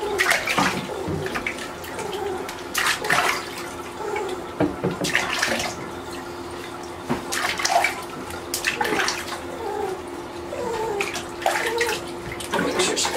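Water sloshing and splashing in a bathtub as a wet puppy is lathered and rinsed by hand, in irregular splashes every second or two.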